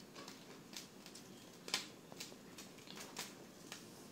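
Faint, scattered light clicks and taps, the loudest a little under two seconds in: sliced ginger being picked up by hand off a plastic cutting board.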